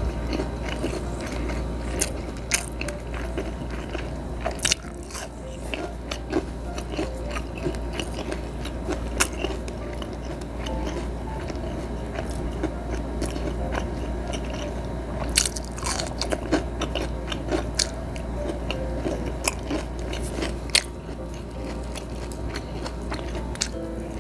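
Close-up chewing and crunching of food. Sharp, crisp bites come irregularly throughout, among them bites of fresh cucumber.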